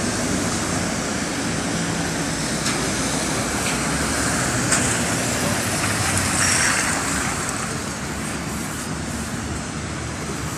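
Steady traffic noise from cars on a wet road, with a NefAZ 5299 city bus running close by as it pulls up to the stop. A short hiss comes about two-thirds of the way through.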